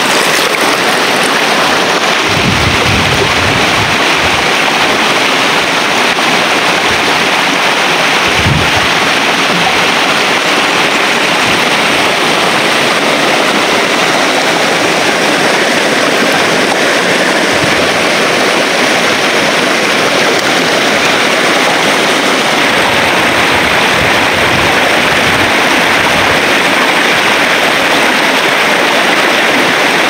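Shallow rocky river rushing steadily close by, with splashing from a person swimming in it and a few low thumps.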